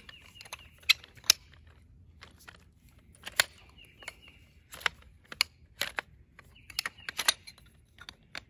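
Aluminium tubes and plastic joint hubs of a folding camp chair's base clicking and clacking as the frame is pulled open and its legs snap into place: irregular sharp clicks, a handful of them louder.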